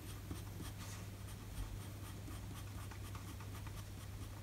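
Pencil lead scratching faintly on paper in quick, short strokes, drawing small soft curls.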